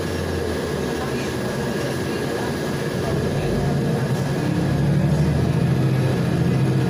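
Inside a Volgabus 5270G2 city bus running on liquefied natural gas: the engine's low drone grows louder from about three seconds in as the bus pulls and picks up speed, over a steady high whine.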